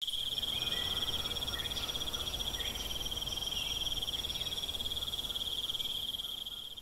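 Crickets chirping in a steady, high, rapid trill, with a few faint short chirps over it, fading out near the end.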